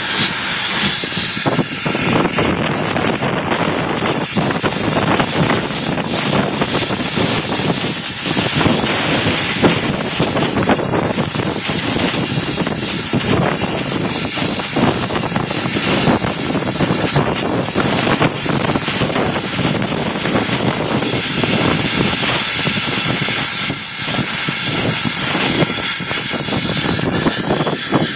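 Steam locomotive S.P.&S. 700, a 4-8-4, heard from inside its cab while working: loud, continuous noise of exhaust, running gear and steam, with a thin steady high tone throughout.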